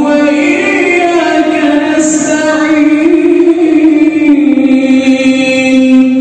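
A man chanting Qur'anic recitation aloud as imam leading the maghrib prayer: one voice in long held notes that step slowly up and down.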